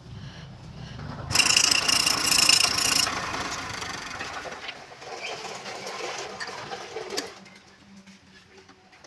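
Wood lathe with a turning tool cutting into the spinning wood. There is a loud burst of cutting noise with a ringing squeal, beginning about a second and a half in and lasting about two seconds. The cutting then carries on more quietly with a few clicks and fades.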